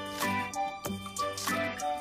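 Light background music: held notes over a regular beat.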